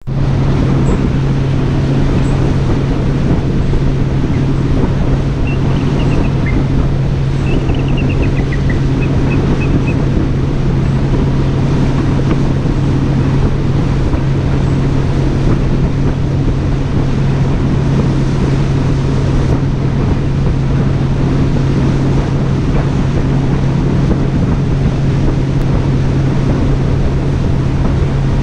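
A boat's outboard motor running steadily with a low, even hum, under loud wind on the microphone and water rushing past the hull.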